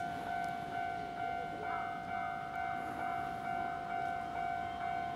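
Japanese railway level-crossing alarm ringing: an electronic bell tone repeating about twice a second, warning of an approaching train.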